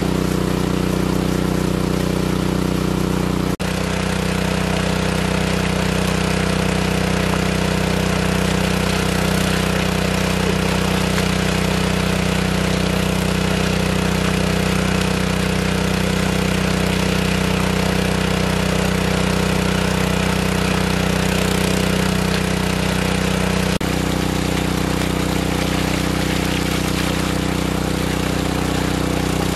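Engine-driven water pump running steadily, with water gushing out of its large discharge pipe and splashing onto a net.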